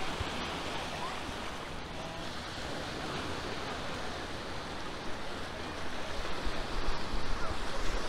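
Small waves breaking and washing up a sandy shore in a steady rush of surf. Near the end, wind buffets the microphone in uneven gusts.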